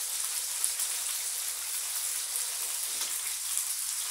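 Pork butt searing fat side down in a hot cast iron braising skillet: a steady sizzle with small crackles.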